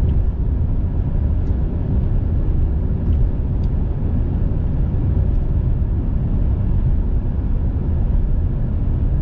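Steady low road and engine rumble inside a moving car, with a few faint ticks.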